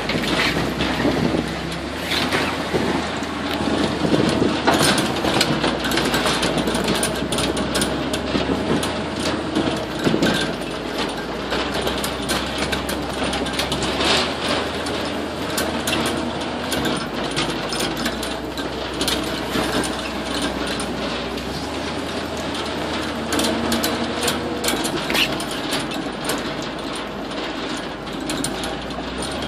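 Open swamp buggy driving along a rough dirt trail: its engine running steadily beneath a continuous rattle and clatter of the vehicle body bouncing over the bumps.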